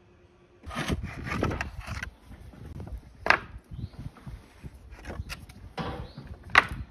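Thick Sizun roofing slates clattering and scraping against one another as they are picked over and lifted from a pile, with a few sharp knocks, the loudest about three seconds in and near the end.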